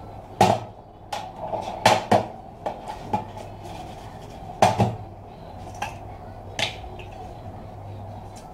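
Metal casing of a desktop computer power supply (SMPS) being handled and set down on a table: a string of metallic clanks and knocks, the loudest about half a second in, around two seconds and around four and a half seconds, over a steady low hum.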